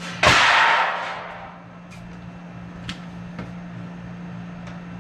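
A loud metallic crash, likely a removed piece of old furnace or coil sheet metal being dropped or tossed aside. It fades over about a second and is followed by a few light knocks.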